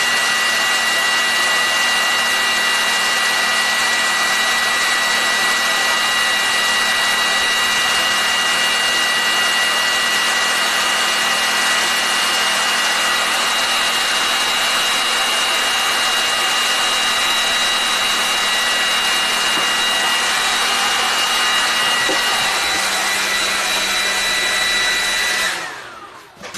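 Electric cooling fan of the load running steadily with a high whine while pulling 500 amps through a battery bus bar, then winding down with falling pitch about 25 seconds in as the load is switched off.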